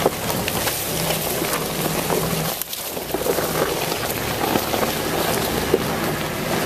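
Jeep Wrangler JK creeping along a leaf-covered trail: a low engine drone under a steady crackle of tyres rolling over dry leaves and twigs. Near the middle the noise briefly drops.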